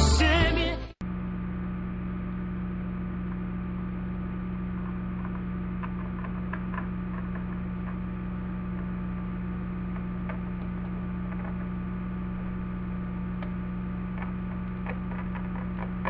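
Steady electrical mains hum in the recording, with faint light clicks and taps now and then from small plastic toys being handled. Pop music fades and cuts off about a second in.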